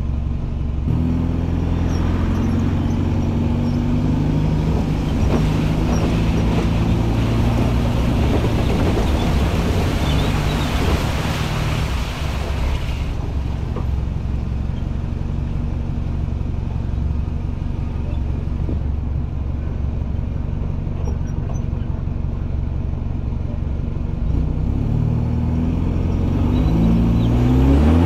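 A motor vehicle's engine running continuously. Its pitch shifts in steps from about a second in and climbs near the end as it speeds up, over a steady road and traffic noise that is strongest in the first half.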